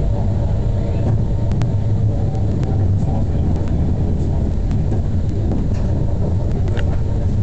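Tram running on street track, heard from inside the car: a steady low rumble with a faint whine and a few light clicks.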